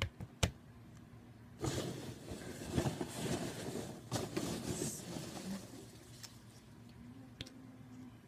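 Two sharp knocks at the start as a jar is set down on a stack of jars, then a few seconds of rustling and crackling as hands rummage through a cardboard shipping box, with one more small knock near the end.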